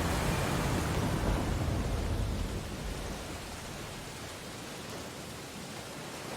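Ocean waves on a beach: a wave surges in at the start and washes loudly for a couple of seconds, then draws back to a softer, steady wash.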